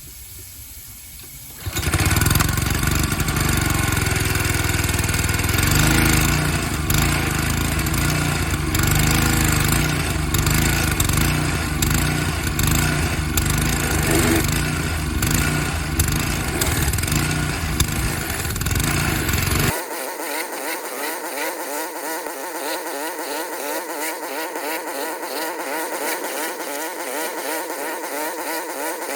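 Honda small petrol engine on a Kärcher pressure washer starting suddenly about two seconds in and running steadily. About two-thirds of the way through the sound changes abruptly to a quieter, thinner running note.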